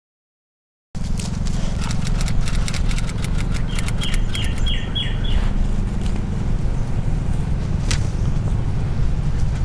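A steady low rumble that starts suddenly about a second in, with scattered light clicks. About four seconds in a bird chirps five quick times.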